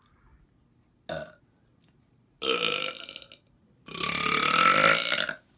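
A man burping on command: a brief sound about a second in, then two long burps, the second longer and the loudest, its pitch rising slightly.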